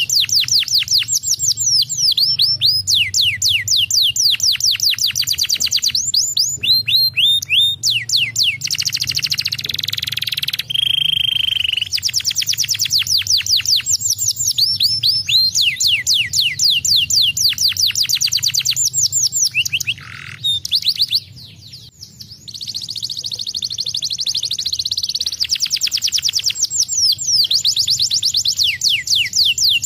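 Domestic canary singing loudly: long fast trills of rapidly repeated downward-sweeping notes, with a short steady whistled note about a third of the way through and a brief pause about two-thirds through.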